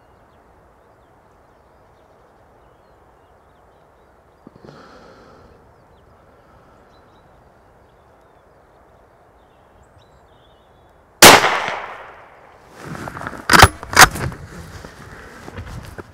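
A single rifle shot from a Blaser R8 in .243, about eleven seconds in: one loud sharp crack with a short fading tail. Two sharp clicks follow a couple of seconds later.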